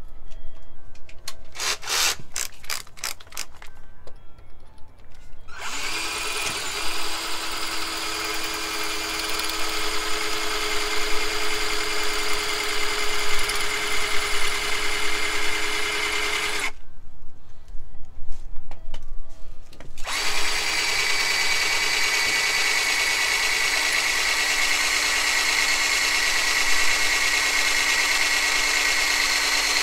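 Black+Decker cordless drill boring into brick with a twist bit. After a few short clicks, it runs steadily for about eleven seconds, stops for about three seconds, then runs steadily again for about ten seconds.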